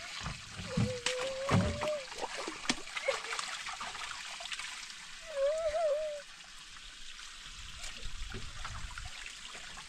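Water trickling, with a few low thuds in the first two seconds and two short wavering tones, the second about halfway through.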